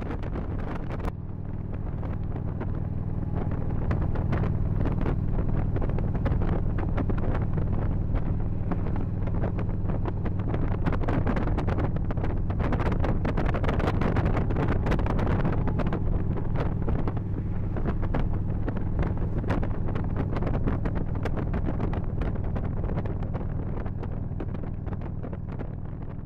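Motorcycle engine running steadily under way, heard from the seat with heavy wind noise buffeting the microphone. It fades out near the end.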